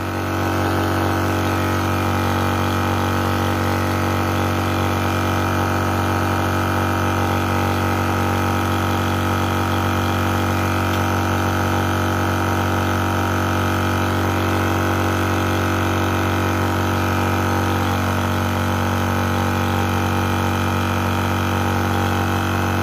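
AceEagle PCP high-pressure air compressor running steadily and smoothly under load. It is filling an aluminium air bottle, with the pressure climbing past about 100 bar.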